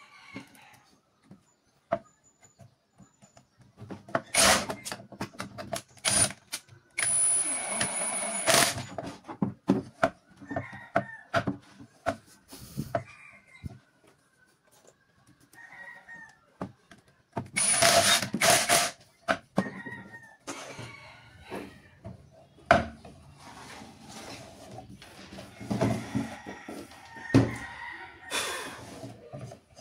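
Wooden boards knocked and set down on a workbench, with two brief bursts of a cordless power tool running. A rooster crows in the background.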